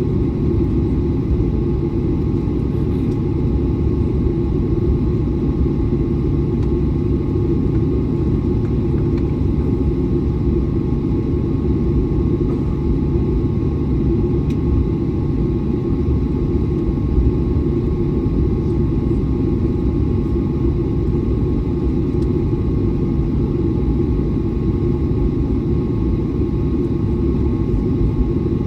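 Airliner cabin noise: a steady low rumble of jet engines and airflow, with a faint steady hum near the middle of the range, holding level throughout.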